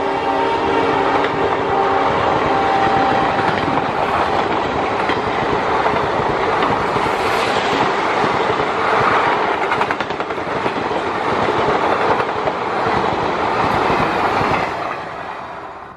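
Indian Railways express train passing at speed: the last of the locomotive's horn dies away in the first couple of seconds, then the coaches rush by with a steady rolling rumble and rapid clickety-clack of wheels over the rail joints, easing off near the end.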